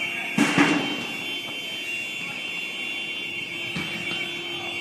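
An alarm sounding one steady, unbroken high-pitched tone. A short, loud crash cuts in about half a second in.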